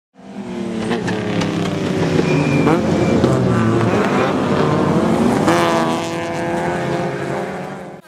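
A race car engine at high revs, its pitch climbing and dropping several times with throttle and gear changes. It fades in at the start and fades out near the end.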